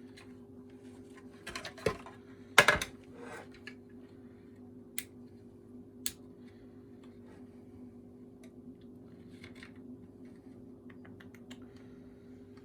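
Scattered small plastic clicks and knocks from handling a vacuum cleaner handle and its switch, the loudest about two and a half seconds in, then only a few light ticks over a faint steady hum.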